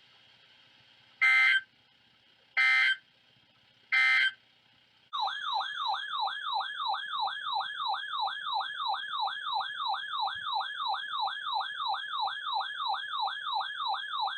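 Emergency Alert System alert on NOAA Weather Radio: three short bursts of SAME digital header data about 1.3 seconds apart, then a loud warbling alert tone that sweeps up and down nearly three times a second. Together they signal that a new alert message, here a severe thunderstorm watch, is about to be read.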